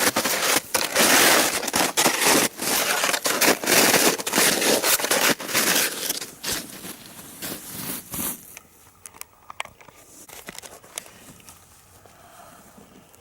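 Footsteps crunching and scraping as a hiker climbs down a slope, loud and dense at first, then thinning to a few faint scattered crackles about eight seconds in.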